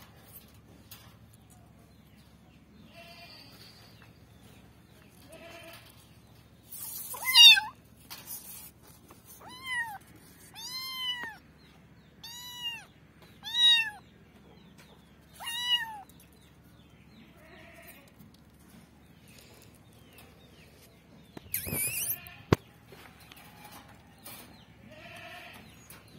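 A young kitten meowing repeatedly, high cries that rise and fall in pitch, with a run of about six loud meows in the middle and fainter ones around them; hungry kitten cries. A short clatter with a sharp click near the end.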